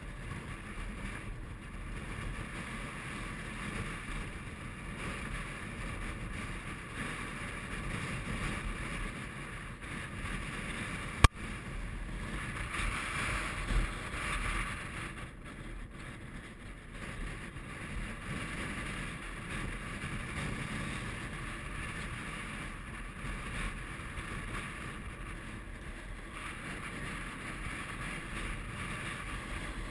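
Strong mountain wind buffeting the camera microphone, a steady rushing rumble that swells and eases. There is one sharp knock about eleven seconds in.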